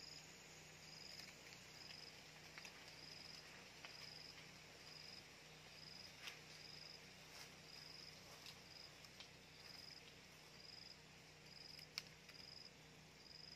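Quiet riverside ambience dominated by an insect, cricket-like, giving a short high chirp repeated at a steady pace, over a faint low hum. A few faint sharp clicks are scattered through, the sharpest near the end.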